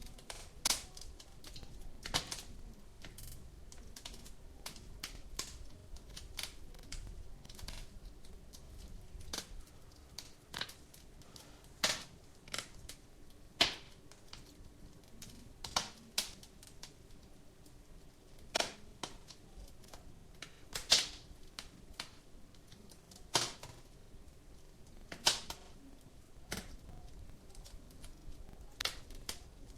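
Wood fire crackling in a fireplace: sharp, irregular pops every second or two, with many fainter crackles between them, over a low steady rumble.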